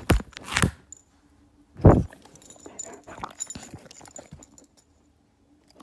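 A dog sniffing right at a phone's microphone: a quick run of short sniffs, then one louder, short, low sound about two seconds in, followed by faint snuffling and small clicks.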